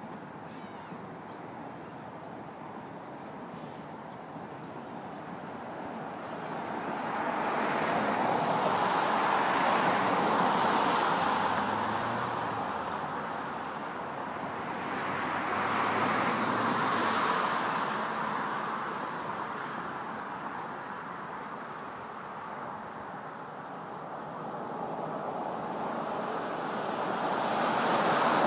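Road traffic: vehicles pass one after another, each a broad rush of tyre and engine noise that swells and fades. The passes peak around ten seconds in, again around sixteen seconds, and a third near the end.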